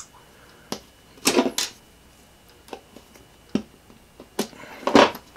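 Scattered clicks and taps of small 3D-printed plastic clock parts and a steel piano wire being handled and pressed together with pliers, with louder clicks about a second and a half in and near the end.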